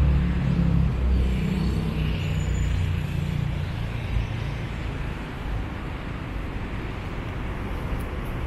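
Road traffic: a motor vehicle's engine running close by, loudest at the start and fading away over several seconds, over a steady hum of traffic.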